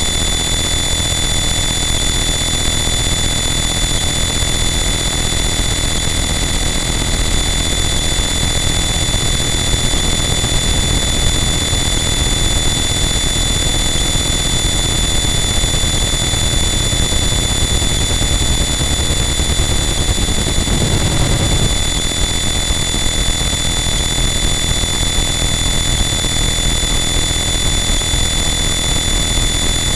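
Harsh noise wall: a loud, unchanging mass of distorted electronic noise, with shrill steady tones over a dense low rumble and a brief low swell about twenty seconds in.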